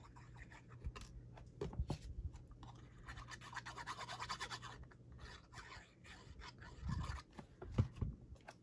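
Card stock and paper scraps being handled on a craft table: scratchy rubbing and sliding of paper, densest from about three to five seconds in, with a few soft knocks, the loudest near the end.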